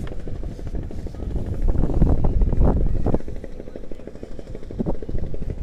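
Strong wind buffeting the microphone in gusts, a choppy low rumble that is loudest between about two and three seconds in, then eases.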